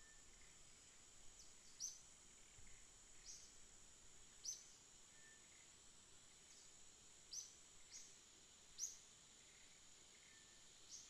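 Faint outdoor ambience: a steady high-pitched insect drone, with about seven short, high chirps scattered through it.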